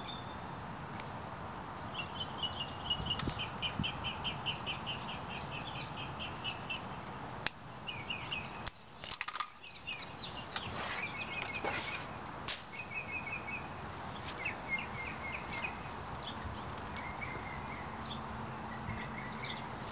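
Small songbirds chirping in repeated runs of quick high notes over a steady outdoor background hiss. A few sharp clicks and rustles come from handling as a lace is threaded through a tire-tread sandal.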